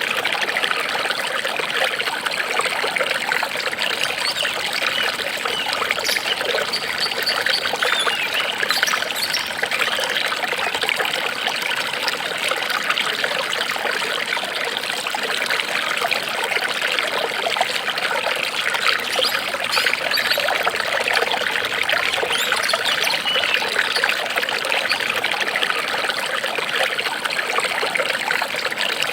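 Running water trickling steadily, like a small stream.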